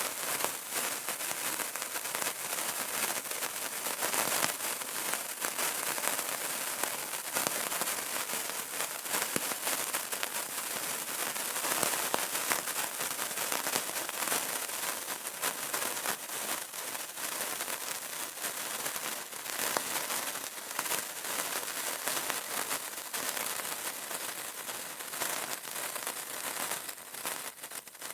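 A burning candle crackling: a dense, continuous patter of small crackles and pops over a steady hiss.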